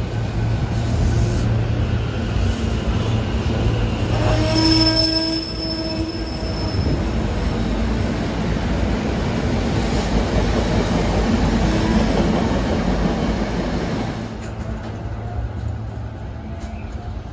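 SEPTA Silverliner IV electric commuter train rolling past at close range with a steady rumble of wheels on rail. About four seconds in there is a brief high wheel squeal. The sound falls off near the end as the train moves away.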